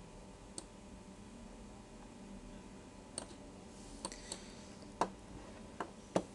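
Computer mouse button clicks: about seven short, sharp clicks, one early and the rest in the second half, loudest near the end, over a faint steady hum.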